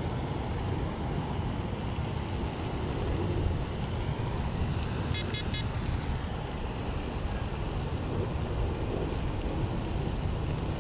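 Wind buffeting the microphone, a steady low rumble. About halfway through come three quick high-pitched beeps.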